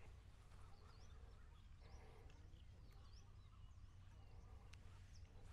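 Near silence, with faint bird chirps now and then: short, high, quick chirps.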